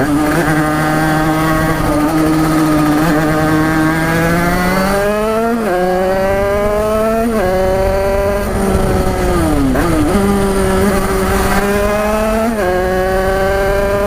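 Tuned small two-stroke motorcycle engine under acceleration, its pitch climbing steadily through each gear and dropping sharply at three upshifts. Near the middle the revs fall away and dip low before it pulls up again.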